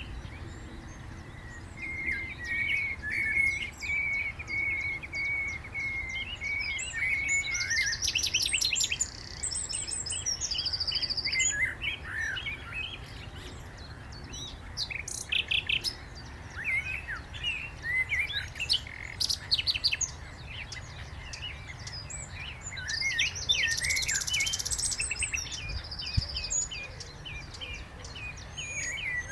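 Common nightingale singing a varied run of phrases: runs of rapid repeated notes, buzzy rattles and whistled notes, with short pauses between phrases.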